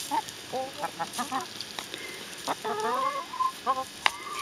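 Backyard hens clucking in short calls as they crowd round a tub of ice, with a sharp tap of a beak pecking at the ice about four seconds in.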